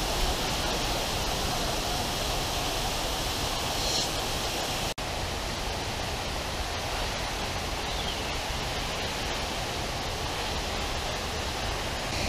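Steady rushing noise of the Bica do Ipu waterfall, a tall cascade of falling water. The sound cuts out for an instant about five seconds in.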